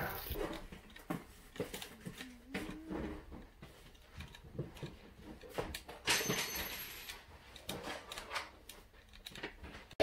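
Small plastic clicks and taps from a toy remote control and its clear plastic packaging being handled, with a brief plastic rustle about six seconds in.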